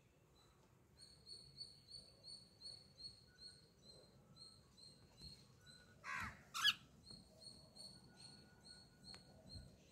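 Cockatiel giving two short harsh calls in quick succession, the second rising in pitch, about six seconds in. Throughout, a faint high chirp repeats about three times a second in the background.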